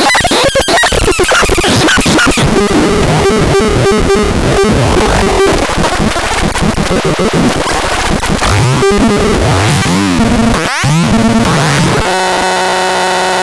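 Loud, harsh electronic noise that crackles and glitches, with a wavering pitch sweep about ten seconds in and a steady buzzing tone near the end.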